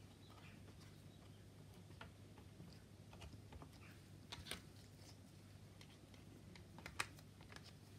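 Near silence with a low steady room hum, broken by a few faint light clicks and taps from gloved hands handling the plastic model aircraft's parts, a pair about halfway and one sharper click near the end.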